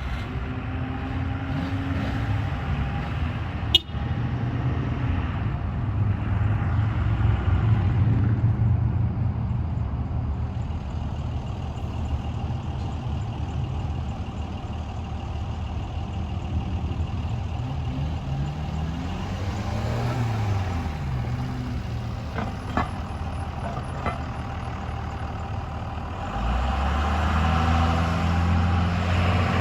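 Subaru Sambar mini truck's engine running as the truck is driven. Its pitch rises and falls through the middle, and it gets louder near the end as it pulls harder. A sharp click about four seconds in.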